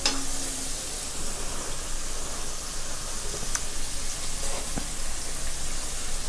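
Pork and tofu simmering in a thin sauce in a wok, giving a steady sizzling hiss, with a few light clicks.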